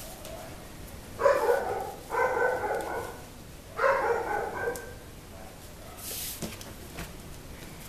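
A dog barking three times in quick succession, each bark drawn out and a little under a second long. About six seconds in comes a short rustle as the foam sheet is pressed by hand.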